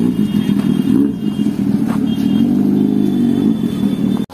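Sport motorcycle engine running as the bike pulls away, its pitch rising and falling with the throttle, cut off suddenly near the end.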